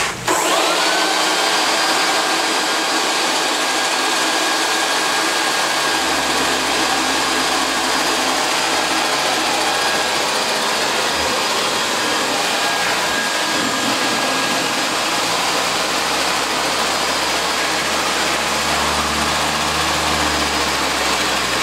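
A powered air blower switched on, its whine rising as it spins up, then running with a loud, steady rush of air onto the fan-blade rotor of a model wind turbine. A low hum comes and goes beneath it.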